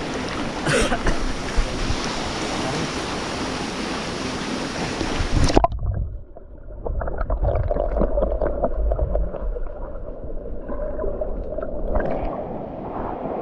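Rushing water of a waterfall as a loud steady hiss. About halfway through it cuts off abruptly to a muffled low rumble with gurgling and small clicks.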